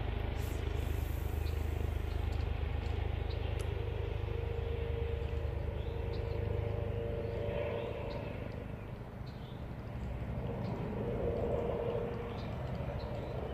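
A motor engine running with a steady low hum, dipping in level around the middle and swelling again toward the end.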